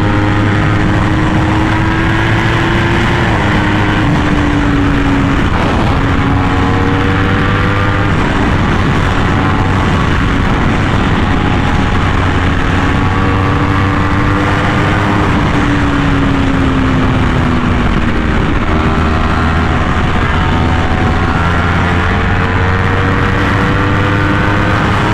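Yamaha R1M crossplane inline-four with an SC Project exhaust under way at highway speed, the engine note climbing, with a brief break about five seconds in and a falling note around two-thirds through before it climbs again. Heavy wind rush on the microphone.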